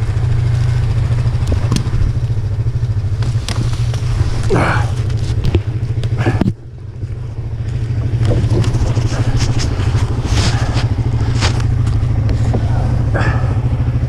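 ATV engine running at idle, a steady low hum that drops out briefly about halfway through and picks back up, with scattered knocks and clatter over it.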